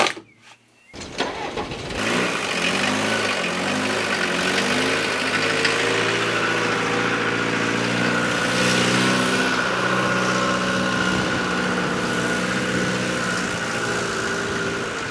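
Mercedes 307D van's diesel engine running as the van drives, coming in about a second in, its pitch rising and easing a little before settling steady.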